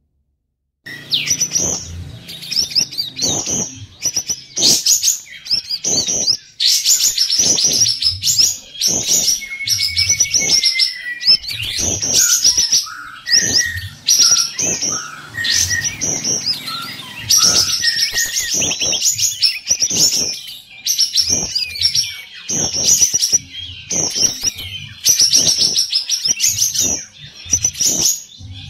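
Caged kapas tembak bulbuls singing: loud, rapid chattering phrases, one after another with short gaps. The song starts about a second in.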